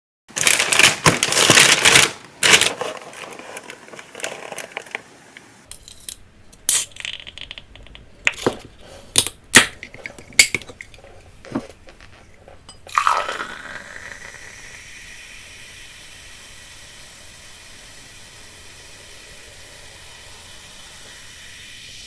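Food preparation handling sounds: crinkling, tearing noise for the first couple of seconds, then scattered sharp clicks and knocks. About thirteen seconds in, a steady whirring hiss starts and holds.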